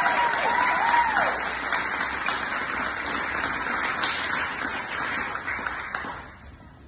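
Audience applauding, the clapping thinning and fading away near the end.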